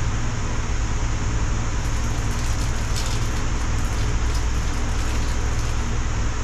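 Steady low hum with an even hiss over it, and a few faint light clicks about two to three seconds in.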